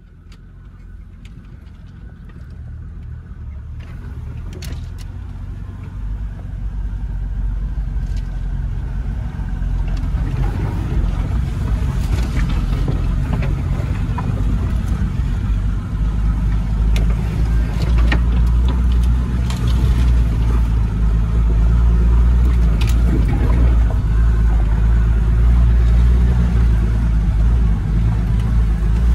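Off-road SUV's engine running as it crawls along a rutted mud track, heard from inside the cab, with occasional clicks and knocks from the body and suspension. The sound swells over the first ten seconds or so, then holds steady.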